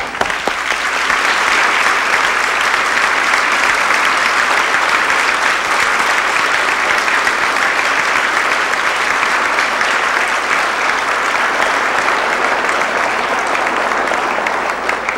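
Large audience applauding in a hall, a steady dense clapping that builds in the first second and tapers off near the end.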